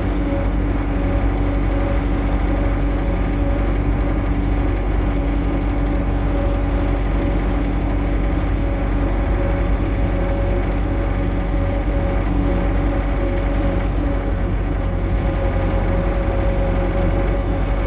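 Tractor engine running steadily as the tractor drives, a constant drone with an even hum that does not change pitch.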